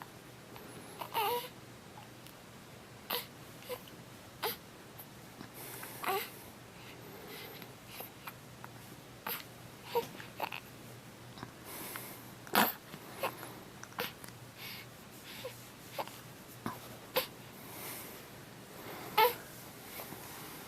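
Baby hiccuping: short, sharp hiccups at irregular intervals of about one to two seconds, some with a small squeak of voice.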